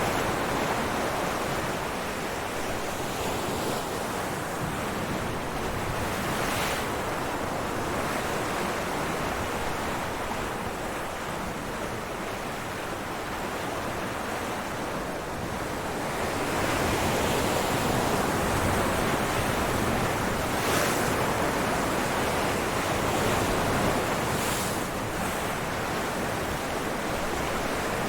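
Ocean waves breaking on rocks, a continuous rush of surf that swells louder for several seconds past the middle, with a few brief splashes.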